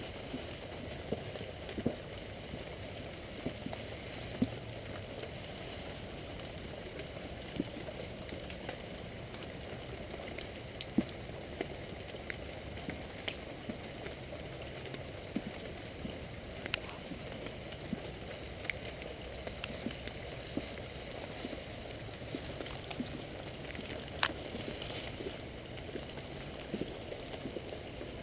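Rain falling: a steady hiss with many scattered, irregular taps of drops landing close by.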